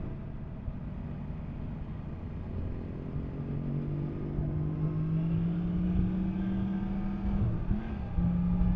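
Yamaha MT-10 SP's crossplane inline-four engine running under way, revs climbing slowly for a few seconds, then a brief dip and recovery in revs near the end, over low wind rush.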